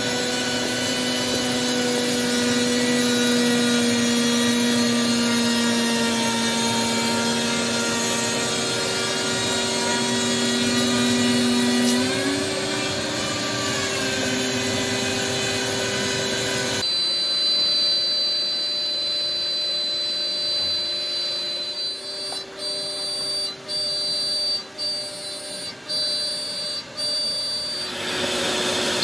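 CNC router spindle and shop vacuum running while a flat bit surfaces the table top: a steady whine under cutting noise, its pitch bending briefly about twelve seconds in. After an abrupt change about two-thirds of the way through, a quieter high spindle whine comes as a 1/4-inch flat end mill cuts the vacuum-table grooves, the cutting noise dipping about once a second.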